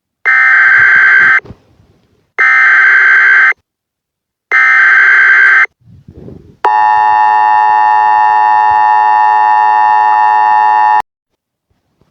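Emergency Alert System header: three bursts of screechy digital data tones, about a second each with a second's gap between. Then the EAS two-tone attention signal holds steady for about four seconds and cuts off sharply.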